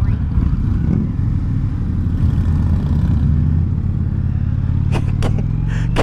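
V-twin cruiser motorcycle engine running at a steady speed, heard from the bike being ridden, with a few short clicks about five seconds in.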